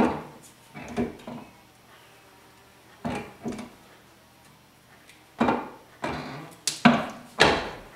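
Hand-operated box-and-pan sheet-metal brake putting a slight bend into a sheet-metal patch panel: a series of metallic clunks and knocks from the brake and the sheet. There are a few spaced knocks at first, then several louder ones close together near the end.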